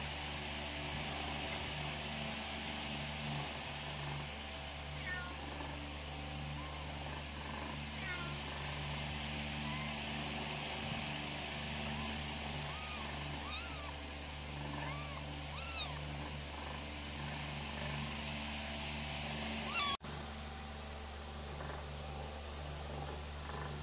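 Newborn kittens mewing: a string of short, thin, high-pitched cries, most of them between about five and sixteen seconds in, over a steady low hum. A single sharp loud click comes near the end.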